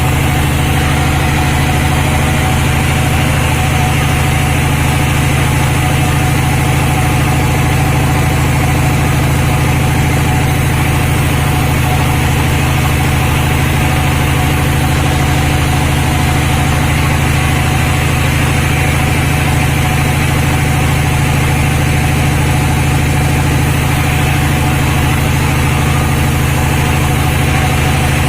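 Sawmill machinery running steadily at constant speed: an even, unchanging engine-like drone with no rise or fall in pitch.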